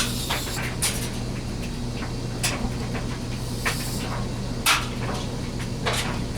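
Knife blade being stroked over a wet King 1000-grit water stone: about six short, irregularly spaced scraping strokes as the tip of the edge is worked.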